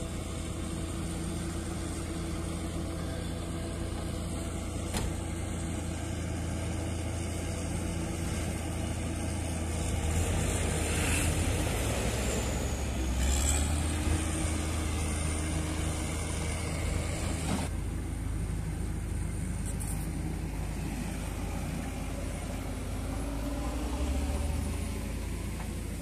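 Diesel engines of heavy earthmoving machines running steadily: a road roller close by, with a bulldozer and backhoe working beyond. The engine speed dips and rises briefly about halfway through.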